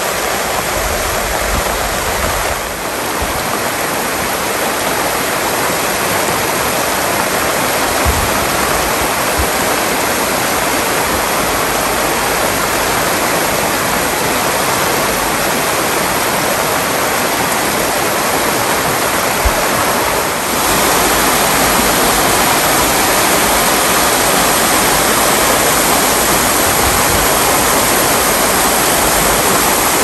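A river flowing fast: a loud, steady rush of water, with a brief dip in level about two-thirds of the way through.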